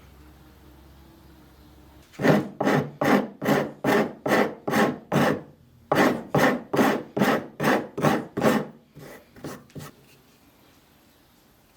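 Hand abrading strokes, a file or abrasive worked back and forth on the old handsaw at about two and a half strokes a second. It comes in two runs with a short pause between, then trails off into a few fainter strokes.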